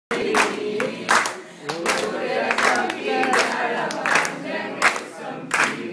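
A group of men singing a Nepali song together, with handclaps keeping a steady beat about every three quarters of a second.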